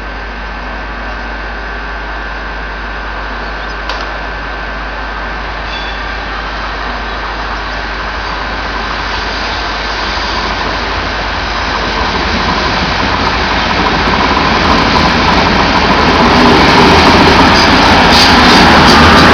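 A double set of CP Series 0450 diesel multiple units approaching and passing close by, its diesel engines running and the noise growing steadily louder, loudest near the end as the cars go past.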